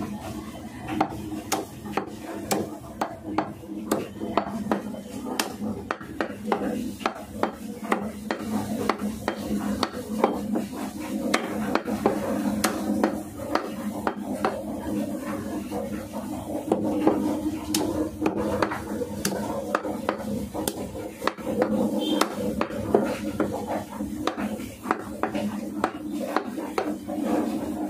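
Steel meat cleaver chopping chicken into pieces on a wooden chopping block: repeated sharp chops, a few a second, irregularly spaced.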